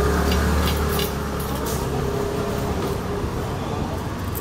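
Low steady rumble of motor traffic, loudest at first and then easing as a vehicle goes by. A few light clicks come through about a second and a half in, from the steel spokes being threaded into the bicycle hub.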